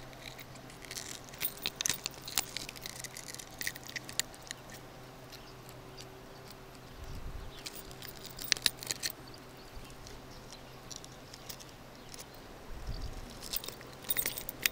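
Scattered small clicks and ticks of steel fishing pliers working a deeply swallowed hook out of a pike's mouth. They come in clusters about a second in, just past the middle and near the end, with a few soft thumps of handling the fish.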